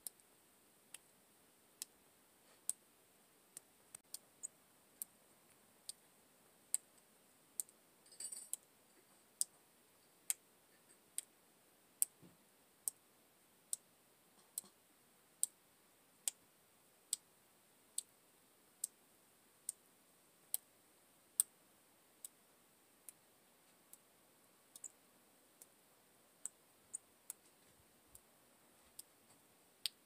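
Sharp, short clicks at an even pace of a little more than one a second, with a brief scuffing noise about eight seconds in, over an otherwise very quiet background.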